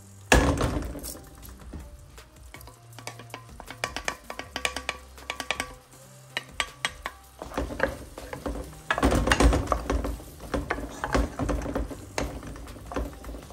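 Metal potato masher pressing and scraping softened fried onions against a stainless steel pan, a run of clatters and scrapes over the sizzle of the onions frying in oil. Near the end a wooden spoon stirs them.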